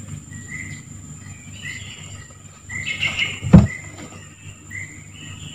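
Tropical forest ambience: a steady high insect drone, with a short call repeated about every half second to a second. A single sharp knock about three and a half seconds in is the loudest sound.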